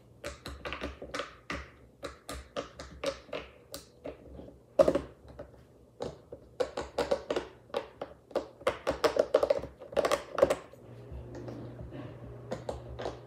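Silicone pop-it fidget toy bubbles being pushed through with the fingertips in quick succession: an irregular run of soft, slightly hollow pops, several a second, with one louder pop about five seconds in.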